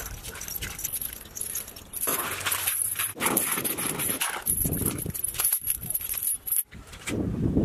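Bare feet splashing and squelching through shallow water and mud, with the links of a steel chain clinking as it is carried and let down into the mud.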